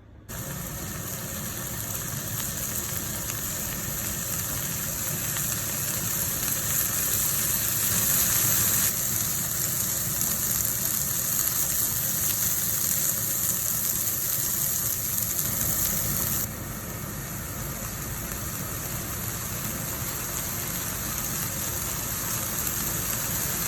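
Daikon leaves and chirimen jako sizzling as they are stir-fried in a pan for furikake: a steady hiss with a low hum under it, dropping abruptly in level twice.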